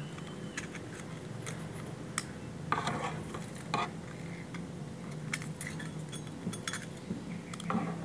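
Scattered light metallic clicks and clinks of small clock-movement parts, such as a geared mainspring barrel, being handled and set down on a wooden table.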